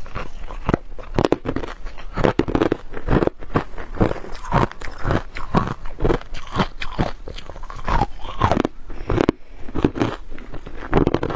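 Close-miked crunching and chewing of freezer frost: a dense, irregular run of crisp crunches as mouthfuls of frost-ice are bitten and chewed.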